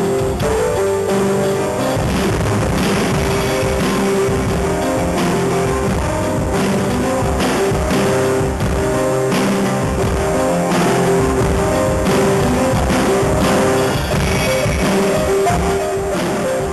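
Live rock instrumental played on electric keyboard and drum kit: held keyboard notes over steady drumming.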